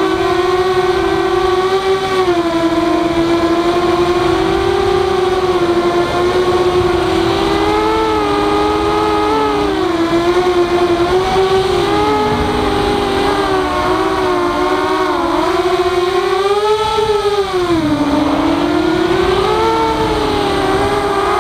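Walkera F210 racing quadcopter's motors and propellers whining. Several close tones rise and fall together as the throttle changes.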